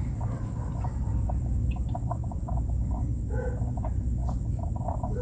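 Light plastic clicks and taps as the halves of an impact drill's plastic housing are fitted back together, over a steady low hum and a continuous high-pitched trill.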